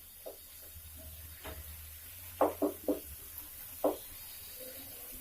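A cooking spoon knocking against a metal pan while the tomato mixture is handled: a few single knocks, then three in quick succession and one more, over a faint low hum.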